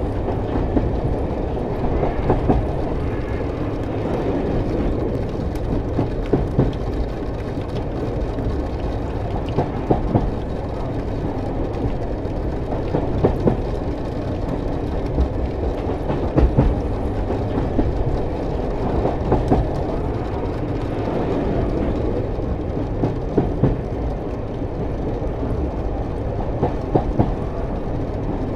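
Double-stack intermodal container freight train rolling through a grade crossing, a steady rumble with irregular clicks and knocks from the wheels on the rails, heard from inside a stopped car.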